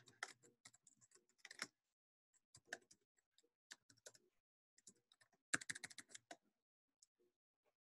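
Faint typing on a computer keyboard: scattered single keystrokes and clicks, with a quick run of keys about five and a half seconds in.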